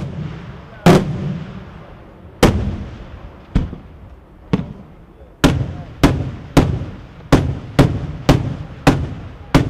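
Daytime aerial fireworks shells bursting overhead: about a dozen loud single bangs, each rolling away in a fading echo, spaced a second or so apart and coming faster in the second half.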